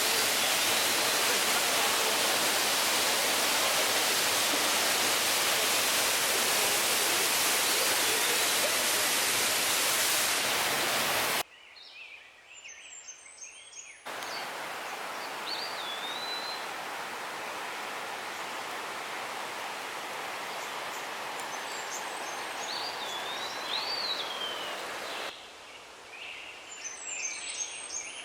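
Steady rushing of a large waterfall close by, loud for about the first eleven seconds. It then cuts abruptly to quieter stretches where birds chirp and whistle over a softer rush of water.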